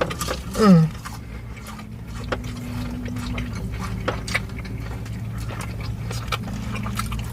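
Close-up chewing and biting: small wet mouth clicks from people eating burgers and fries, over a steady low hum. Under a second in, a short voiced sound falls in pitch.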